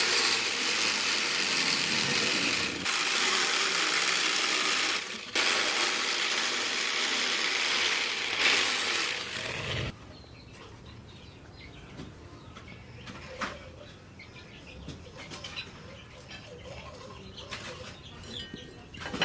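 Power grinder working a steel blade, a harsh steady hiss that breaks off twice briefly as the tool leaves the work, then stops about ten seconds in, leaving only light clicks and taps of handling.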